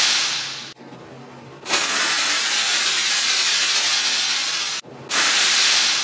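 Seatbelt pretensioner's pyrotechnic gas charge firing, heard as a loud rushing hiss. The hiss breaks off and comes back twice, each time starting and stopping abruptly.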